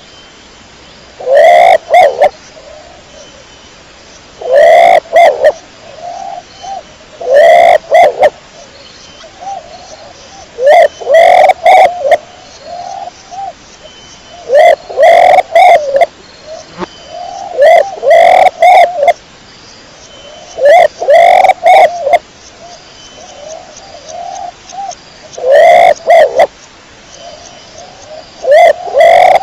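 Domestic pigeon cooing: loud bursts of two or three coos come about every three seconds, with softer cooing between them.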